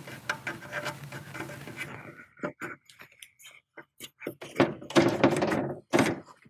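Handling noise as the AC cable is pushed through a rubber cable gland into a plastic inverter connection housing: rustling at first, then a run of scrapes, clicks and knocks, loudest about five to six seconds in.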